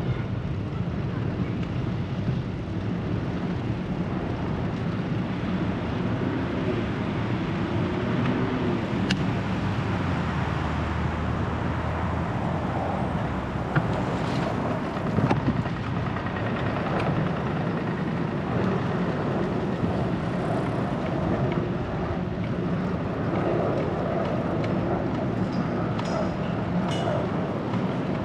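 Steady street noise heard from a moving bicycle in city traffic: rolling and wind rumble with cars going by. A couple of brief knocks come about halfway through.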